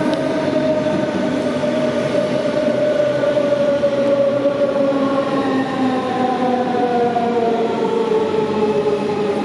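DB Class 425 electric multiple unit's traction converter whining as the train slows, a stack of tones gliding steadily down in pitch over the rumble of wheels on rail.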